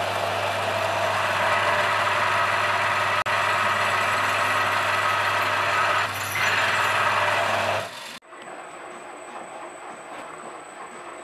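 Drill press running steadily with a strong motor hum while drilling into a welded steel guide-mounting block. About eight seconds in it cuts to a quieter milling machine facing the block, with a faint high whine.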